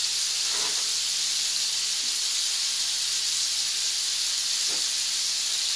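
Food sizzling on a SEAAN 2-in-1 electric grill plate: a steady, even hiss with no break.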